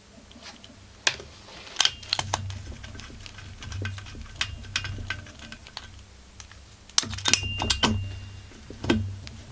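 Irregular clicks, clinks and light knocks of hand tools against metal chainsaw parts as they are worked and handled, a few with a short metallic ring. The clicks come in two busy spells, one starting about a second in and another about seven seconds in.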